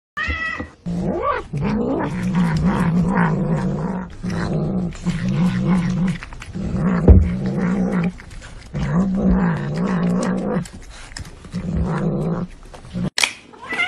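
A domestic cat making low, wavering growls in stretches of one to two seconds while it eats, with a short cry at the very start and a high meow near the end.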